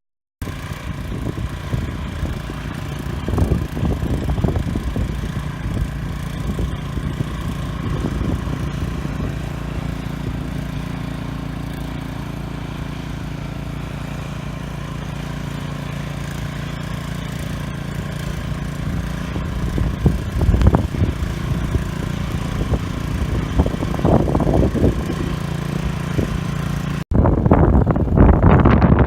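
An engine running steadily with a constant hum, with low gusts of wind buffeting the microphone now and then; the sound cuts abruptly near the end.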